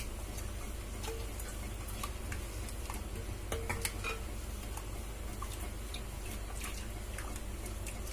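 Steel ladle stirring a thin coconut-gravy curry in a clay pot: soft liquid swishing with scattered light clinks of the ladle against the pot, over a low steady hum.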